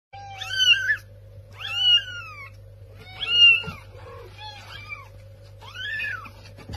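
Kitten mewing repeatedly: about five high-pitched mews, each rising then falling in pitch, about a second apart, over a faint steady hum.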